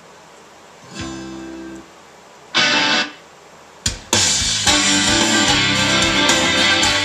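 Converted car radio playing guitar music from a USB stick, the song starting about four seconds in with a click. Before it come two short bursts of hiss and a brief low tone.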